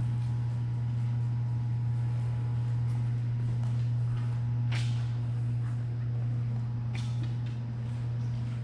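A steady low hum, even in pitch and level throughout, with two sharp clicks about two seconds apart near the middle.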